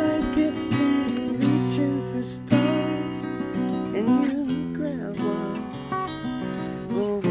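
Acoustic guitar music, picked and strummed, with a sharp strum about two and a half seconds in.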